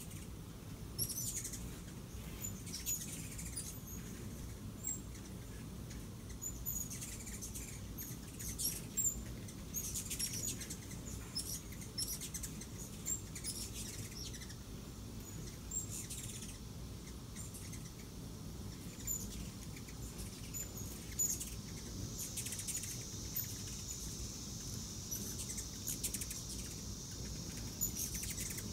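Ruby-throated hummingbirds at a feeder giving many short, high squeaky chips and scratchy chattering calls. In the last third a steady high-pitched buzz joins in.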